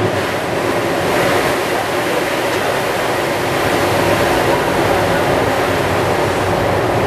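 TTC Line 1 subway train running at speed through a tunnel, heard from the front cab: a steady, loud rumble and hiss of wheels on rails.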